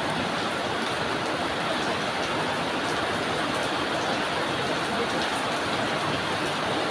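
Steady drizzling rain: an even hiss with faint scattered drop ticks.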